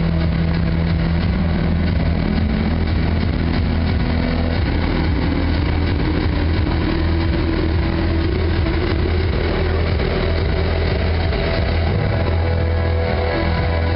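Film soundtrack playing loudly over a room's loudspeakers: a deep, steady bass drone, with a tone that rises slowly in pitch over the second half.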